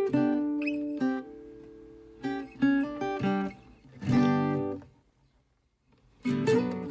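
Background music: acoustic guitar playing plucked and strummed notes, breaking off for about a second shortly before the end and then starting again.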